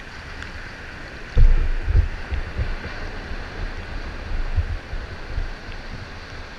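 Sea water rushing and splashing around a kayak as a wooden Greenland paddle dips through choppy surf, with low wind gusts buffeting the microphone from about a second and a half in.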